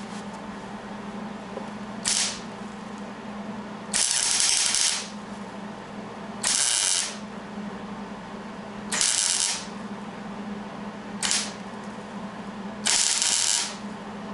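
Arc welding crackling in six short bursts of half a second to a second each, laying weld onto a broken steel exhaust stud in an LS V8's aluminum cylinder head, building it up so the stud can be gripped and backed out.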